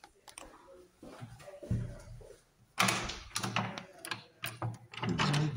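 Door being handled and pushed open: faint shuffling, a thud, then from about three seconds in a quick run of knocks and rattles.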